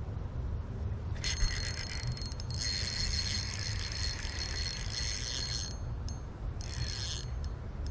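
Fishing reel whirring in three bursts as it is worked: a short one, a long one of about three seconds, then a brief one. Low wind rumble runs underneath.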